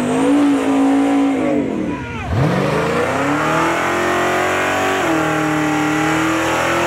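Chevrolet El Camino SS drag car's V8 revving hard for a burnout, its rear tyres spinning and smoking. The revs sag and dip about two seconds in, then snap up and hold high and steady.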